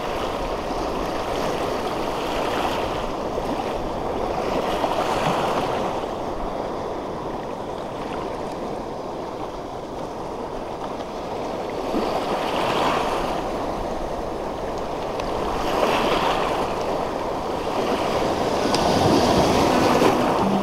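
Small waves washing over a shallow rocky reef flat, a steady rush of water that swells louder every few seconds as each wave surges in.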